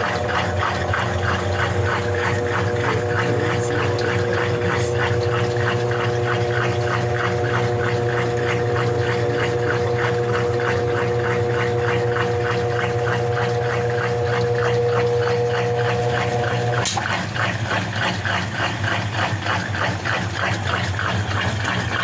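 EASY 17 kg top-load washing machine on its spin cycle, the motor running with a steady whine over a low hum as the basket turns with a fast rhythmic whir, spinning now that its no-spin fault is repaired. About 17 s in, a click and the motor whine stops while the basket keeps turning.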